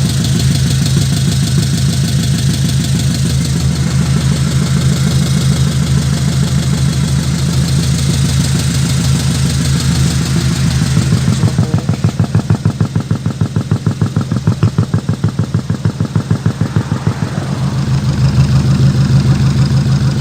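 Engine idling steadily with a low hum, then throbbing in a fast, regular pulse for about six seconds in the middle before settling back to a steady idle.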